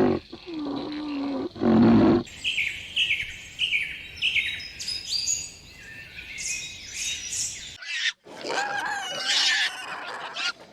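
Low, drawn-out animal calls for about two seconds, then small birds chirping in quick repeated high notes. After a sudden cut near the end comes a denser mix of bird calls.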